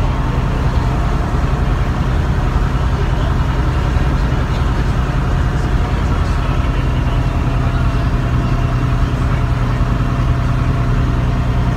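Bristol RELL6L single-deck bus's Leyland six-cylinder diesel engine running at a steady, unchanging pitch, heard from inside the passenger saloon.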